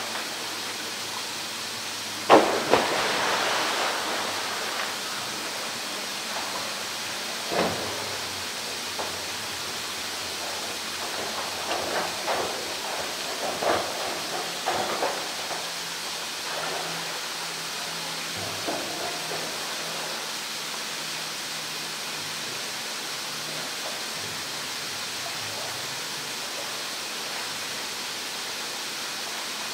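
A polar bear plunges into a pool with one sharp splash about two seconds in, and the water washes on for a couple of seconds after. A few smaller splashes follow over a steady rush of running water.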